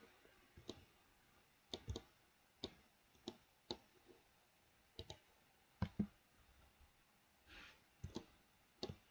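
Faint clicks of a computer mouse and keyboard, about a dozen single and paired clicks at uneven intervals, with a spacebar press near the end.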